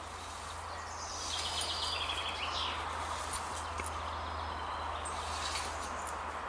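A songbird sings one short trilled phrase that steps downward, about a second in, with a few faint chirps later, over steady outdoor background noise and a low wind rumble.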